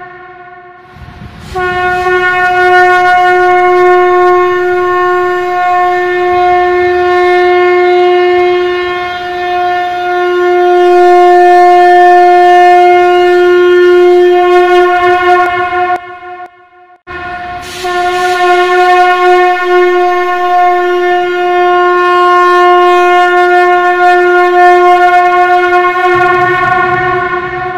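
Conch shell (shankh) blown in two long, loud blasts on one steady pitch, each held for well over ten seconds. There is a brief break between the blasts, and the second trails off near the end.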